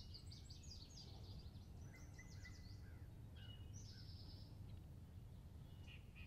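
Woodland songbirds singing: quick runs of high chirping notes in the first couple of seconds, then a single buzzy high note about four seconds in, over a faint steady low rumble of background noise.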